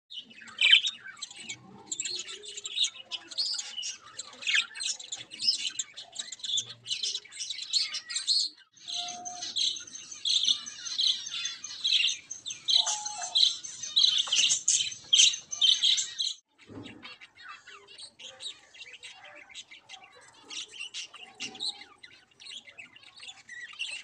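Budgerigars chirping and chattering rapidly in high-pitched calls. The calls are dense for the first sixteen seconds, then thin out to sparser chirps.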